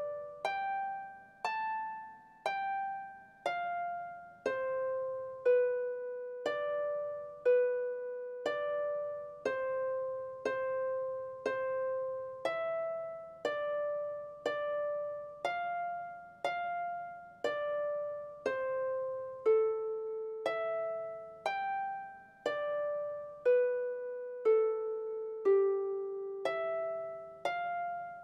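Background music: a slow, gentle melody of single notes, about one a second, each starting sharply and fading away.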